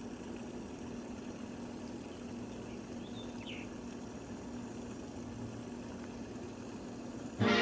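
Steady outdoor background noise with a faint low hum and one brief faint chirp about three seconds in; music starts just before the end.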